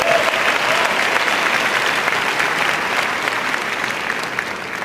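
Audience applauding, a dense patter of clapping that dies away toward the end.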